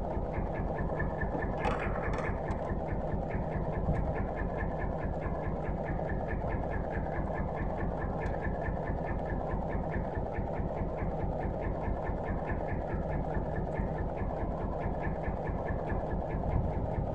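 Small wooden fishing boat's engine idling steadily with a rapid, even putter.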